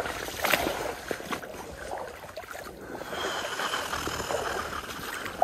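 Water splashing and sloshing around legs wading through a shallow stream, in uneven surges.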